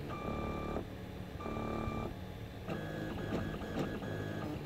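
Stepper motors of a Prusa i3-clone 3D printer whining as it prints a small PLA test cube. The pitch changes with each short move, giving a run of steady tones that jump to a new note every half second to a second.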